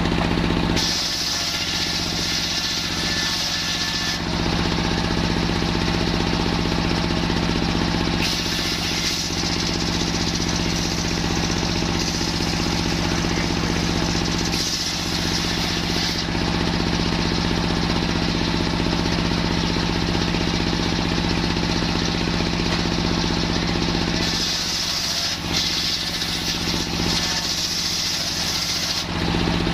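Circular sawmill (serkel) running steadily under its engine's hum, its blade ripping coconut-palm timber in three spells of added high hiss, the longest in the middle.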